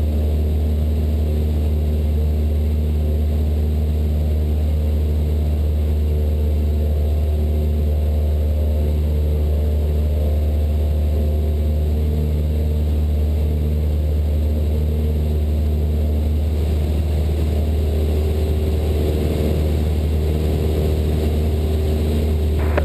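Cessna 172 Skyhawk's piston engine and propeller droning steadily inside the cabin, a constant low hum at climb power shortly after takeoff.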